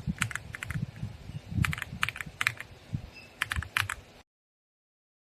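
Mechanical keyboard switches being typed on in quick, irregular keystrokes, each a sharp click with a low thud beneath it. The sound cuts off suddenly about four seconds in.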